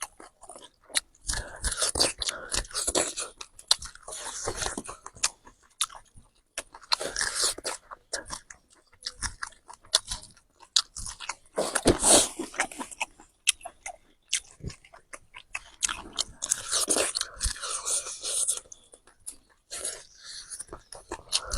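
A pig crunching and chewing corn, in repeated bouts of crunching with short pauses between them and many sharp clicks of its jaws.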